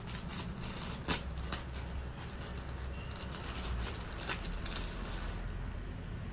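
Scissors cutting through a plastic courier mailer bag, with the plastic crinkling as it is handled. A few sharp snips or crackles come about half a second in, around a second in, and again a little after four seconds.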